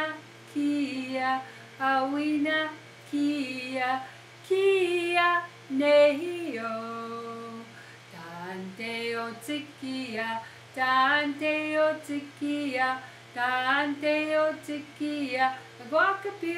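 A woman singing unaccompanied, short phrases of held and stepping notes with brief pauses between them.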